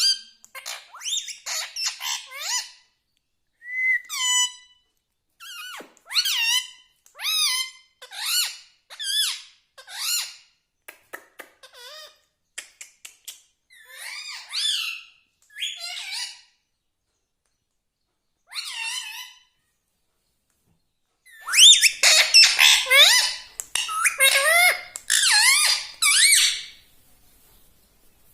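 Indian ringneck parakeet giving a string of short, squeaky calls and chirps with gliding pitch, spaced out at first and then coming thick and fast in a dense run near the end.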